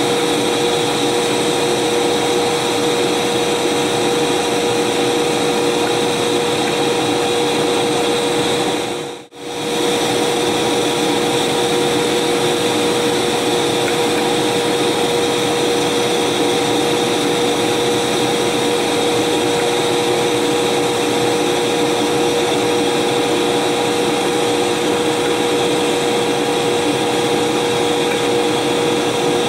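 British Rail Class 92 electric locomotive's equipment running: a loud, even whirr with a steady humming tone, like cooling fans. The sound dips out briefly about nine seconds in and comes straight back.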